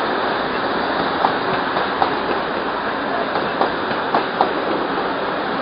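Passenger train rolling past on the tracks: a steady rumbling run of noise with scattered sharp clacks from the passing cars.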